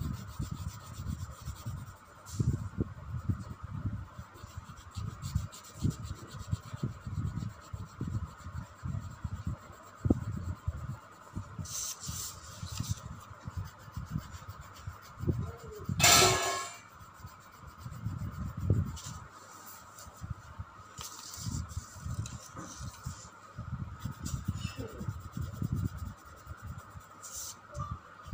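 Blue coloured pencil scribbling back and forth on paper over a clipboard, a fast, uneven run of rubbing strokes as an area is filled in with colour. A brief louder noise cuts in about halfway through.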